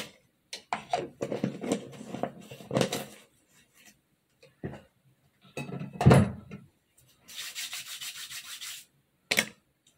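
Close-up rubbing and handling noises as hands work face cream and then rub together, irregular at first, with a quick run of rubbing strokes about seven seconds in and one sharp click near the end.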